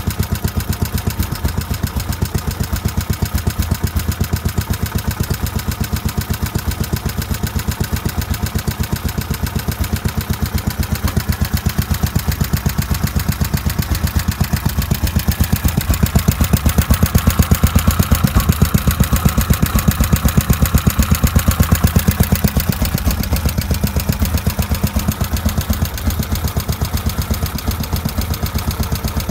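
Clinton 700-A1 single-cylinder air-cooled small engine running steadily, its exhaust pulses coming in a fast, even rhythm. It gets a little louder for several seconds past the middle, then settles back.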